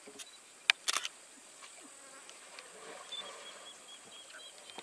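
Quiet bush ambience at a waterhole. Two sharp clicks come about a second in, then from about three seconds in a rapid run of short, high chirps, about four a second.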